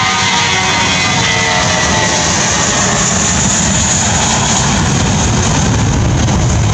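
Airbus A320-232's twin IAE V2500 turbofan engines at takeoff thrust during the takeoff roll: a loud, steady jet noise with a high hiss that is strongest in the middle.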